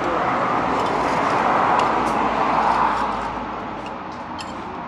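A road vehicle passing by: a broad rushing sound that swells over the first two to three seconds and then fades away.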